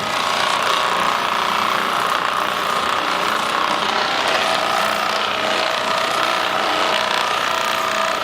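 Handheld percussion massage gun running steadily, its motor giving a constant buzzing hum with no breaks.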